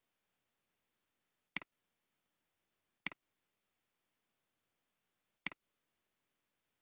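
Computer mouse clicking three times, each click a quick press-and-release double tick, against near silence.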